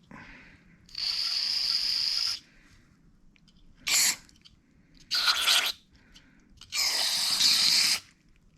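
Aerosol can of carburetor cleaner spraying in four hissing bursts, clearing gum from a carburetor: a long burst about a second in, a short squirt, then two more bursts.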